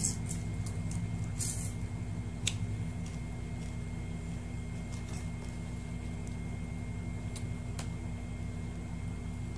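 Steady low mechanical hum in a small room, with a few faint clicks and taps of eating by hand from plates.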